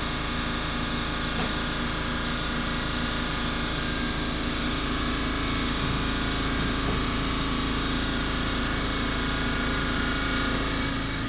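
A steady machine drone: a motor running at a constant speed with an unchanging hum, with no rise or fall.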